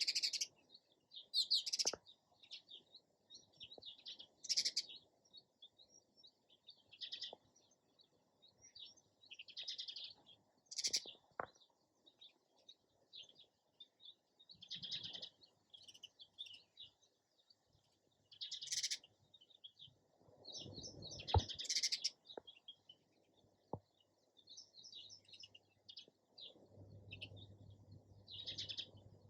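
Sparrows chirping: short bursts of high chirps coming every second or few seconds at uneven intervals, with a faint low hum near the end.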